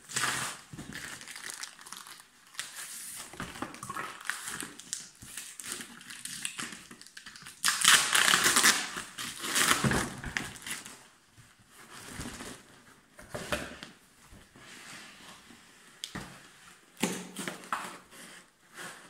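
A taped and plastic-wrapped cardboard box being handled and pulled open by hand: irregular crinkling and crackling of packing tape, plastic wrap and cardboard, loudest in a long burst about eight seconds in.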